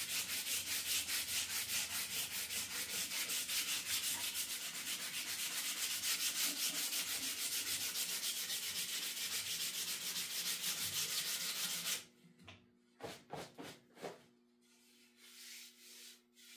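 A wooden axe handle being sanded by hand, in fast, even back-and-forth strokes of about four or five a second. The sanding stops abruptly about twelve seconds in, followed by a few light knocks and handling sounds.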